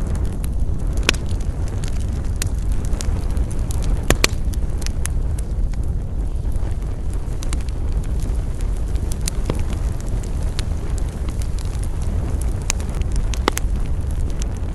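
Wood campfire burning: irregular sharp crackles and pops, a couple of them louder, about four seconds in and near the end, over a steady low rumble.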